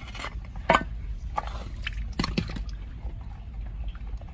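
A hand rummaging in shallow muddy water among broken bricks and tile shards, with splashing and sloshing and a few sharp knocks and clacks of the debris. The loudest knocks come about two and a quarter seconds in, over a steady low rumble.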